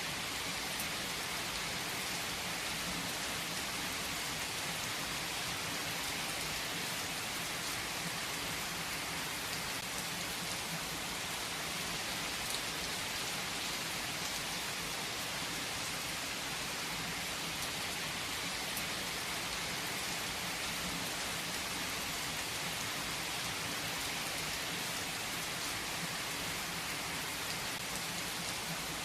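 Steady rain falling on a hard surface, an even hiss with scattered drop ticks.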